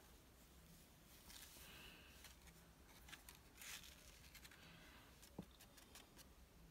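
Near silence, with a few faint, brief rustles and a soft tap as vellum card and a tub of embossing powder are handled.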